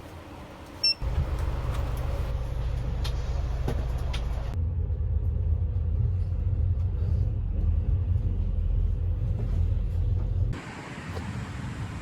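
Low steady rumble of a vehicle in motion, starting sharply about a second in and falling away near the end.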